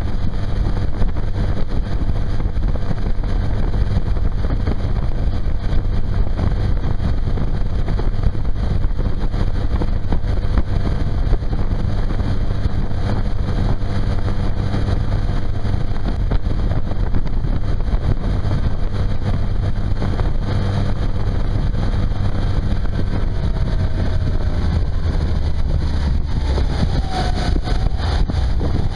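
Tohatsu four-stroke outboard motor running steadily at speed, driving a jon boat across the water.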